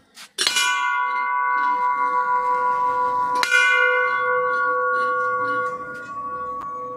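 Large hanging temple bell struck twice by its clapper, about three seconds apart, each strike ringing on with a long, slowly fading hum of several steady tones.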